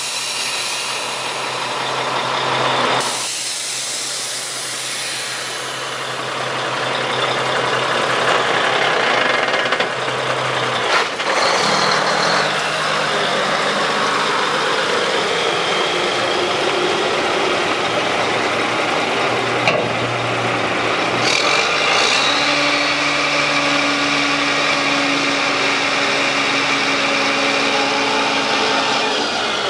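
1992 Mack RD600 dump truck's EM6-300 diesel engine running, with a steady hiss over it. About 22 seconds in the engine note steps up and holds steady as the hydraulic hoist raises the dump box.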